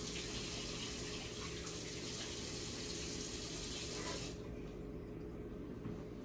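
Water running from a tap into a sink as the test tubes of an aquarium water-test kit are rinsed out; the tap shuts off about four seconds in.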